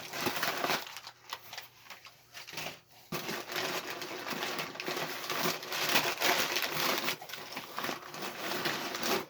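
Packing paper being handled and crumpled: a crinkling rustle, scattered at first and then continuous from about three seconds in.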